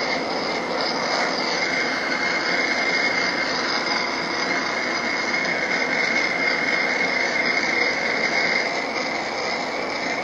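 Small butane torch burning with a steady hissing rush and a thin steady whistle, its turned-down flame being swept over the sawn edges of acrylic to melt and clear the frosted surface.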